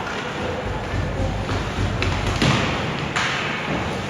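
Several sharp thuds and knocks from play, roughly a second apart, over a background murmur of voices.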